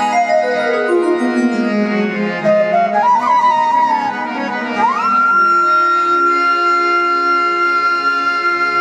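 Instrumental prelude on harmonium and a flute-like melody voice. The melody slides between notes, then rises to a long held high note about five seconds in, over sustained harmonium chords.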